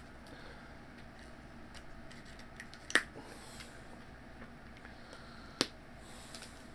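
Packaging being cut open with a knife and handled: faint scraping and small ticks, with two sharp clicks, one about three seconds in and one near the end.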